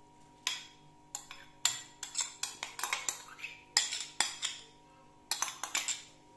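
A metal spoon clinking and scraping against a bowl in several quick runs of sharp taps as grated carrot is knocked out into the pan.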